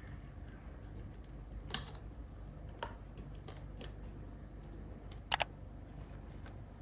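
Scattered light clicks and taps from hands and tools working on an MSI RTX 3070 Gaming Trio graphics card, the loudest a quick double click about five seconds in, over a low steady hum.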